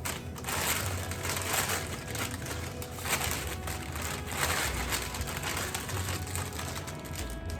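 Packaging crinkling and rustling as it is handled and pulled from a box, in several uneven surges.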